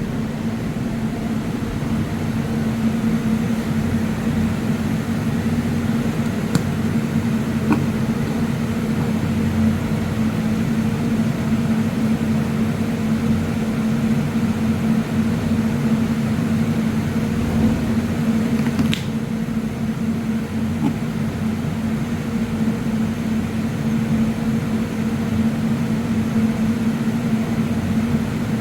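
Steady machine hum with a low pitched drone, broken by a few faint clicks.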